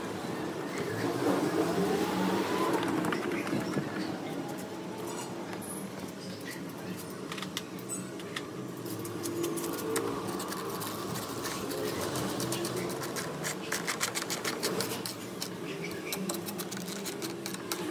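Hand screwdriver fastening the plastic body panels of a TVS Ntorq scooter, heard as two runs of rapid clicks, the first from about a third of the way in and the second near the end, over a faint background murmur of voices.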